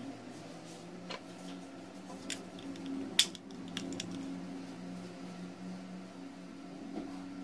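Small metal and hard plastic clicks and taps as the parts of a WMF Perfect pressure cooker handle are handled and fitted together, a few scattered clicks with the sharpest about three seconds in.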